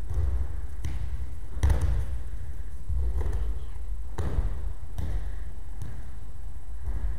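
Several dull thuds of aikido practitioners being thrown and landing on the mats in breakfalls, the loudest about a second and a half in, with another strong one past the middle. A steady low rumble runs underneath.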